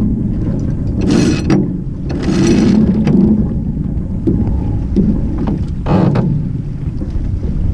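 Albin Vega sailboat under way: wind buffeting the microphone and water rushing along the hull make a steady rumble. Two short rasping noises about one and two seconds in, and a briefer one near six seconds, come from the sailor handling gear in the cockpit.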